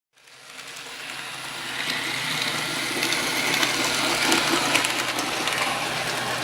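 Model trains running on a layout: a steady rolling hiss of small wheels on track with a faint motor hum and light ticks, fading in over the first couple of seconds.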